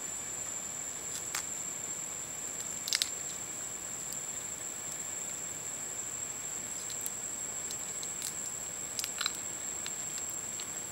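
A pan of water heating over a small wood fire: a steady hiss with a few faint clicks and pops, two of them about 3 s in and a cluster near the end, under a continuous high-pitched whine.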